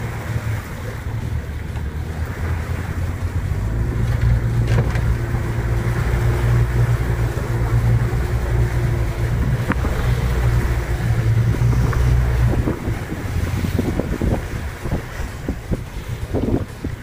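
Boat engine running with a steady low hum, growing louder a few seconds in and easing off about two-thirds of the way through, after which come several irregular knocks.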